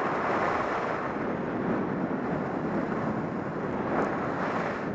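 Steady rushing wind on the microphone of a camera worn by a skier skiing downhill, mixed with the hiss of skis running on groomed corduroy snow.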